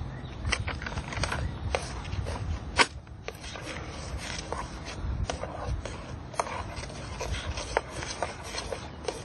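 A utensil scraping and clicking irregularly against a metal camping pot as instant mashed potato flakes are stirred into hot water, with one sharper click about three seconds in.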